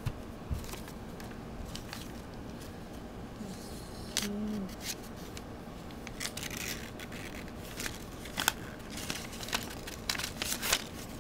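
Paper rustling and crinkling as a folded sheet is handled and opened out by hand, with scattered short crackles that come thicker in the second half.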